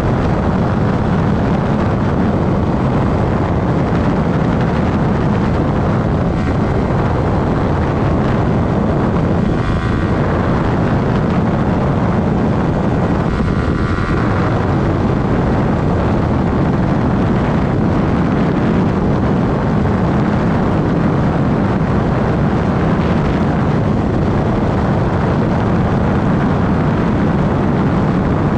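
Motorcycle riding at a steady pace: the engine runs continuously under a constant rush of wind on the microphone.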